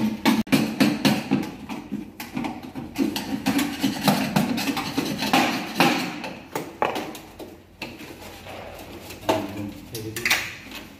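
Irregular knocks and metallic clatter from the sheet-metal housing of an exhaust fan being handled and fitted. The knocks are busy at first and thin out after about six seconds.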